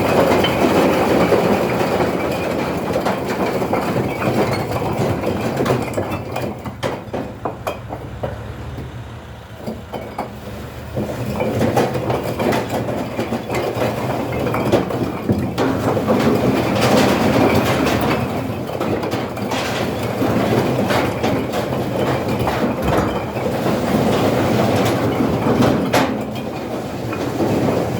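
Bricks clattering and clinking as they are unloaded from a tractor trolley, over the tractor's engine running steadily. The clatter dies down for a few seconds about a third of the way in, then picks up again.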